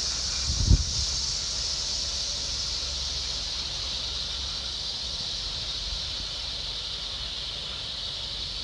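Steady high-pitched hiss of an insect chorus, over a low rumble of wind on the microphone, with a short low thump less than a second in.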